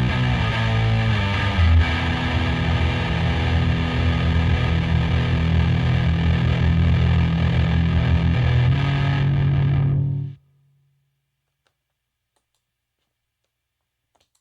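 Epiphone 1959 Les Paul Standard with Burstbucker pickups played through a Marshall DSL40 and an EVH 5150 Overdrive pedal: heavily distorted, sustained low chords that change twice. About ten seconds in the sound cuts off abruptly, as the pedal's built-in noise gate closes, leaving near silence.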